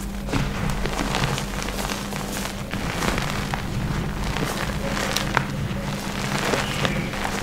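Hands pressing, crumbling and scooping dusty reformed gym chalk and Holi colour powder: a continuous soft, gritty crunching with many small crackles and a few sharper crunches.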